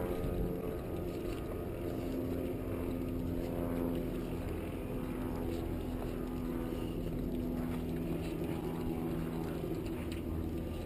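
A motor running steadily: a continuous low hum holding several steady tones.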